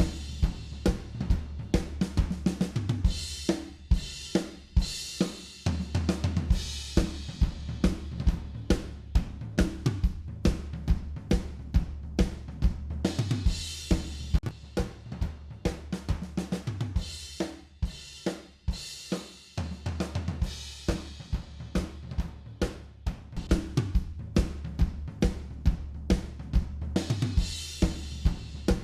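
Recorded drum kit playing a busy groove of kick, snare, hi-hats and cymbals, with a bass line of held low notes changing pitch underneath; it thins out briefly twice.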